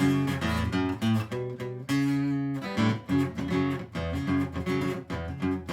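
Instrumental break of a song: strummed acoustic guitar chords in a steady rhythm.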